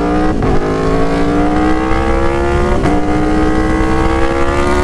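Aprilia Tuono Factory motorcycle engine through an aftermarket SC-Project S1 exhaust, pulling up through the gears with the pitch climbing. There are two quick upshifts, about half a second and about three seconds in, and the pitch levels off near the end. The bike is very loud and rowdy.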